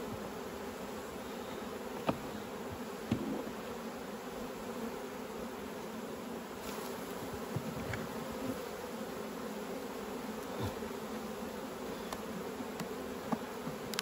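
Honeybees buzzing steadily around an open hive, with a few short sharp clicks and knocks as wooden frames are levered and lifted with a steel hive tool.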